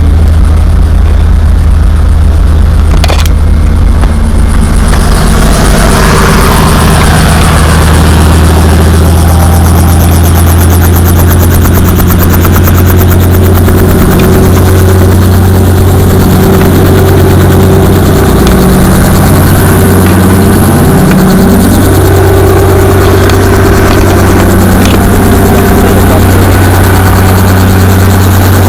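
Tour helicopter's engine and rotor running loudly and steadily, a deep even hum with overtones that shift in pitch for several seconds in the middle.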